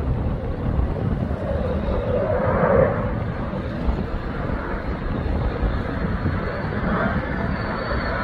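Mitsubishi F-2 fighter jet flying overhead, its engine a steady noisy rumble that swells about a third of the way in, with a faint high turbine whine rising near the end.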